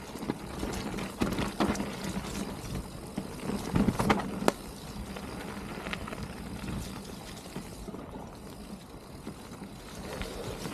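Mountain bike riding down a wet, muddy trail: tyres rolling and splashing through mud, with the bike clattering and knocking sharply several times over roots or rough ground in the first half, then a steadier, quieter rolling sound.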